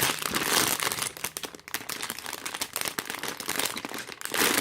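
Crinkling and rustling of sealed plastic LEGO parts bags being handled, many small crackles close together.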